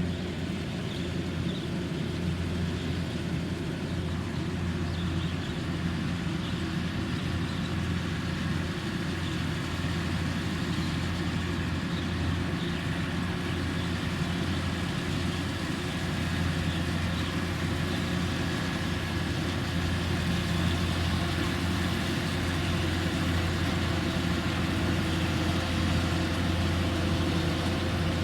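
Kubota rice combine harvester's engine running steadily with a low, even hum, a little louder in the second half.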